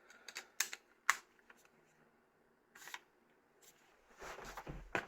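A few sharp small plastic clicks in the first second, the loudest about a second in, then soft handling noise near the end: a Nokia 7650 mobile phone's battery being fitted.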